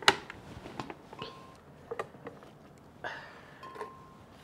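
Knocks and clinks of a blender jug being handled on its base, with chopped onion, garlic and ginger dropped into it. There is a sharp knock right at the start, then about half a dozen softer knocks spaced out. The blender is not running.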